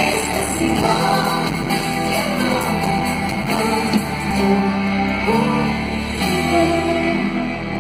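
Live pop-rock band playing loudly with electric guitar while a woman sings into a microphone, recorded on a phone from the audience.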